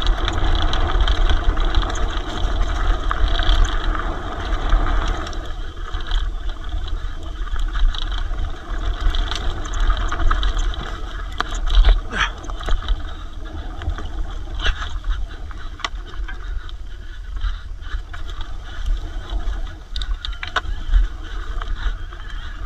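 E-mountain bike ridden fast down a rough trail: wind buffeting the microphone as a steady low rumble, with tyre noise and scattered clatters and knocks from the bike over the ground. The rush of noise is strongest for the first five seconds or so.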